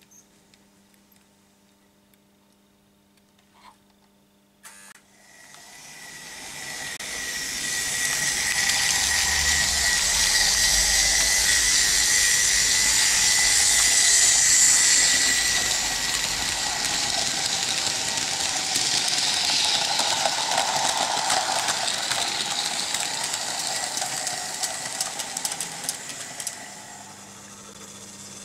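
Märklin H0 NOHAB model diesel locomotive and its train running on metal M-track close by: a steady high motor whine over the rattle and hiss of wheels on the track. It builds up over a few seconds after a faint click, holds, and falls away near the end. A low mains hum sits underneath in the quiet stretch before it.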